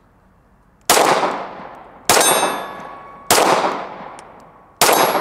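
Four 9mm pistol shots from a Smith & Wesson M&P9 M2.0, fired slowly about a second and a half apart, each a sharp crack with a tail of echo dying away over about a second. Several shots are followed by a thin metallic ring.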